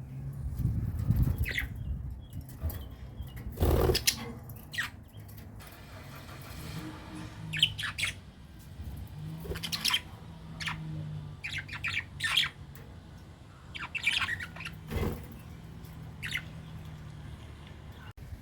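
Birds chirping in short scattered calls over a low hum, with two sharp thumps, one about four seconds in and one near fifteen seconds.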